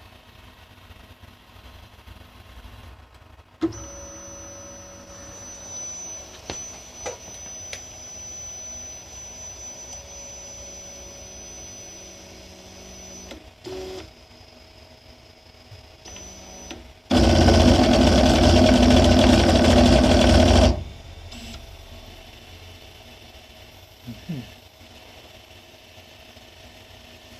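Creality Ender 3 V3 Plus 3D printer running its motion under test: stepper motors whine steadily for about ten seconds after a click. About two-thirds of the way in there is a loud, even rushing noise lasting about three and a half seconds.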